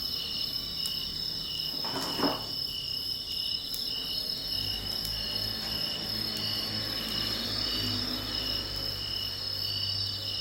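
A chorus of insects chirring steadily, one high trill pulsing over a higher continuous whine. A brief louder noise comes about two seconds in, and a few faint ticks are scattered through.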